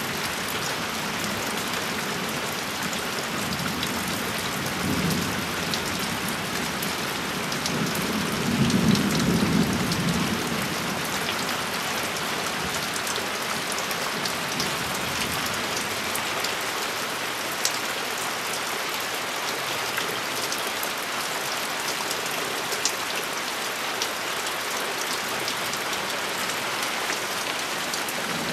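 Steady rain falling on leaves and ground in a thunderstorm. A low rumble of thunder swells twice, about five seconds in and more strongly about nine seconds in, and a few sharp drop ticks stand out later.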